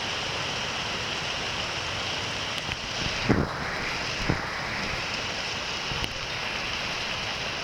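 Heavy rain pouring down, a steady hiss, with two short bumps about three and four seconds in.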